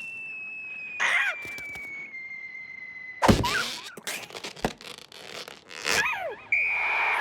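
Cartoon sound effects: a long whistle sliding slowly down in pitch for about three seconds, ended by a loud impact. Short squeaky cartoon vocal noises come before and after it, and a steady high tone comes in near the end.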